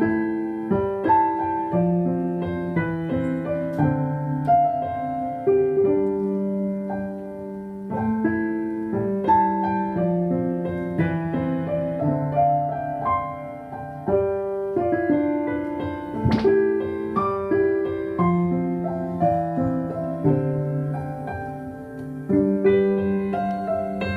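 Piano music: a slow melody over chords, one note or chord about every half second to a second, with a sharp click about sixteen seconds in.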